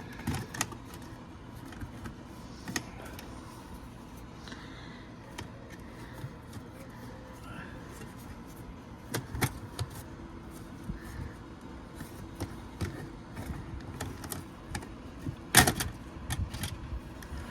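A plastic drain snake being worked inside a dryer vent duct, with scattered clicks and knocks as it scrapes and catches against the duct, the sharpest about fifteen and a half seconds in, over a low steady hum.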